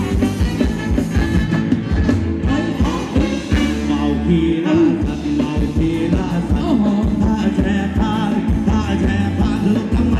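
Live band playing Thai ramwong dance music with a steady drum beat and a singing voice.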